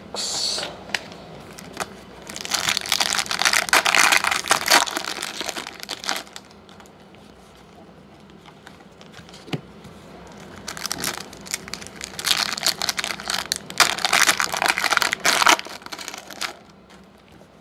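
Foil trading-card pack wrapper crinkling and tearing open, in two long stretches of rustling a few seconds each, with light clicks of cards being handled between them.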